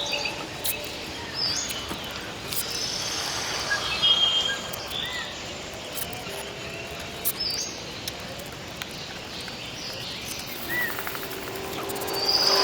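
Birds chirping now and then, short high notes, over a steady outdoor background noise.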